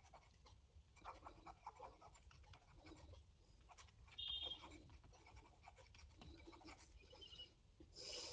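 Near silence, with faint scratching and tapping of a stylus writing on a tablet screen, and one short faint high tone about four seconds in.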